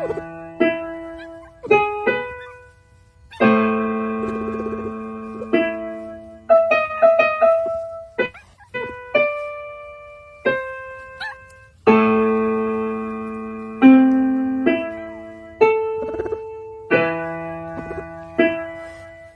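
Slow solo piano background music: single notes and full chords struck and left to ring and fade.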